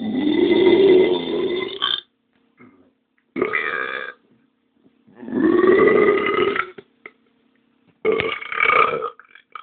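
A person belching four times in a row, with silence between: the first and third burps long and drawn out, the second and fourth shorter.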